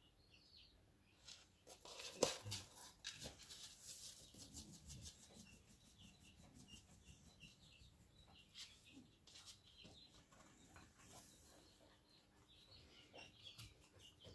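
Faint chirping of small birds, with scattered clicks and one sharp click about two seconds in.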